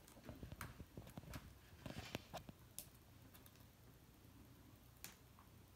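Near silence with faint scattered clicks and short rustles, mostly in the first three seconds: a small toy or its packaging being handled.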